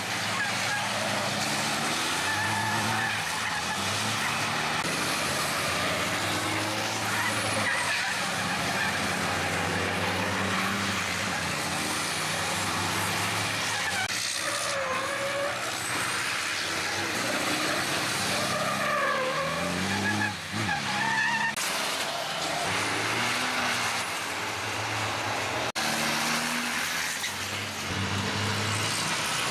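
Racing trucks' turbo-diesel engines running hard as several pass one after another through a chicane, the engine notes rising and falling with throttle and gear changes.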